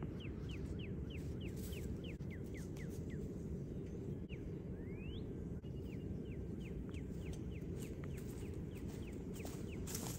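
A bird calling in rapid series of short, falling chirps, about three or four a second, with a pause and a single rising note near the middle, over a steady low rumble.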